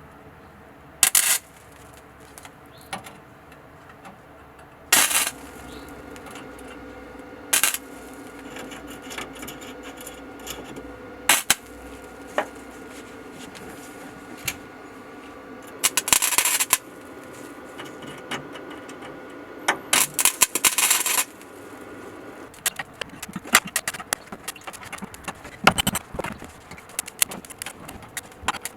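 Welding on sheet-metal rust-repair patches in a truck bed: short bursts of welding crackle, each lasting from a moment to about a second, with a steady hum between them. Many small metallic clicks and knocks follow near the end.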